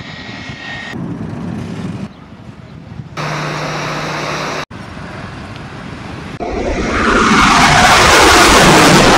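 A string of short, abruptly cut snatches of jet airliner engine noise, one with a steady low hum. About six and a half seconds in, a much louder jet noise swells up and holds, sweeping like an airliner passing close overhead.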